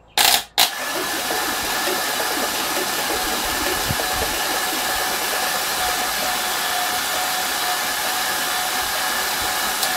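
GM LQ4 6.0-litre V8 spun over by its starter with the spark plugs out: a short first burst, a split-second break, then about nine seconds of steady, fast cranking. It quiets down a little as it spins, which the builder takes for the hydraulic lifters finally filling with oil.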